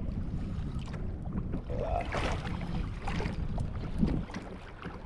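Wind buffeting the microphone over water sloshing against a kayak hull, with scattered small splashes.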